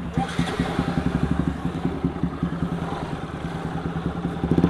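Single-cylinder Bajaj 200 engine through a decat aftermarket SC Project-style full-system exhaust, idling with an uneven pulsing beat and getting louder near the end.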